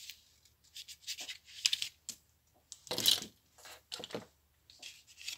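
Stiff cardstock rustling and scraping as it is handled, folded open and slid flat on a cutting mat, in short irregular bursts with a louder one about three seconds in.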